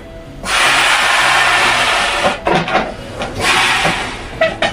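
A party balloon being blown up by mouth: two long, hard blows of breath rushing into it, with a short pause to breathe in between.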